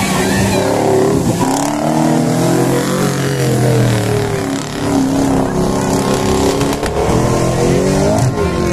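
Off-road 4x4 jeep engine revving hard under load while ploughing through deep mud, its pitch climbing and dropping several times as the driver works the throttle.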